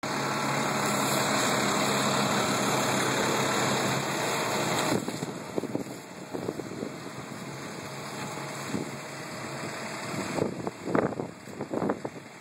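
Fire truck's engine running steadily, with low steady tones under a loud even noise. About five seconds in the level drops, and the rest is a quieter, uneven gusty noise with a few sharp peaks near the end.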